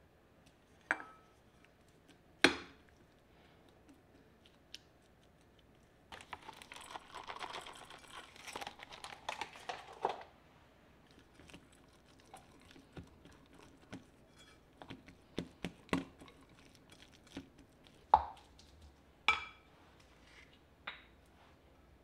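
Kitchen prep sounds: a couple of sharp taps in the first few seconds, then a few seconds of crinkling and rustling, then a wooden spoon stirring shredded cheese and butter in a ceramic bowl, with light scrapes and a few sharp knocks against the bowl.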